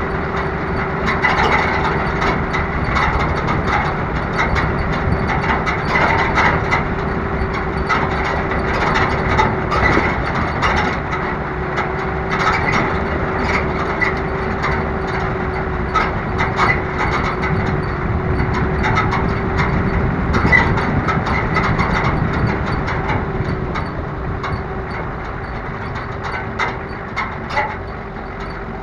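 Small off-road vehicle's engine running steadily as it drives along a rough dirt track, with its metal rack and frame rattling and clattering continually over the bumps.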